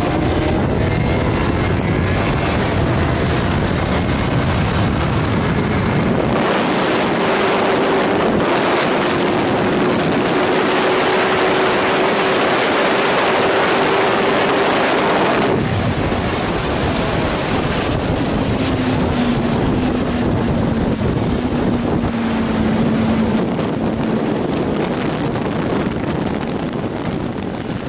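Suzuki GSR inline-four motorcycle engine pulling at speed under heavy wind rush on the camera mic, its note climbing slowly through the middle. About fifteen seconds in, the wind rush drops off abruptly and the engine note falls lower as the bike slows.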